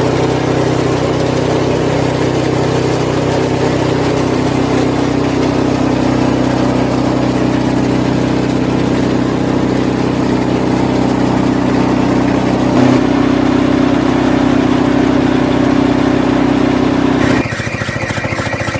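Engine of a home-built banana-stem feed chopping machine running steadily at constant speed. About seventeen seconds in it breaks off abruptly and a quieter sound with a rapid, even pulsing and a high tone takes over.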